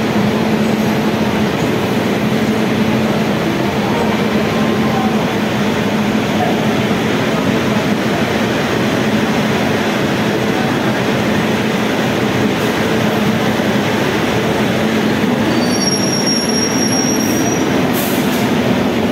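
Indian Railways passenger train coaches rolling along a station platform: a steady, loud rumble of wheels on the rails, with a brief high-pitched wheel squeal late on.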